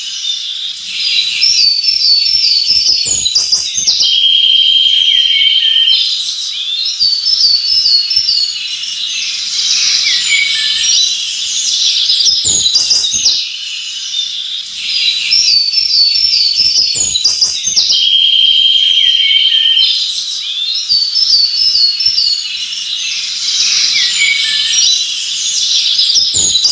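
Several songbirds chirping and singing at once, their calls overlapping, with a steady buzzy trill twice. The same stretch of birdsong repeats about every 13 seconds, as in a looped recording.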